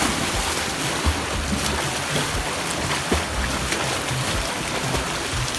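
Steady rushing noise of open water, with uneven low rumbling.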